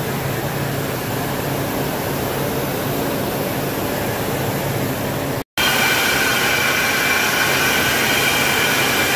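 Several carpet-drying air movers running, drying a flood-soaked carpet: a steady rush of air with a low hum. About five and a half seconds in it cuts to a louder stretch with a high, steady whine over the rush.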